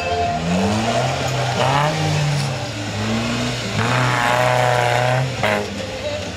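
Off-road trial buggy's engine revving hard, rising and falling again and again as it claws up the side of a dirt pit. It holds a long high-revving stretch about two thirds of the way through.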